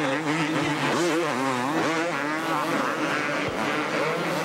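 Several two-stroke motocross bike engines revving hard, their pitch rising and falling over one another as the riders work the throttle around the supercross track.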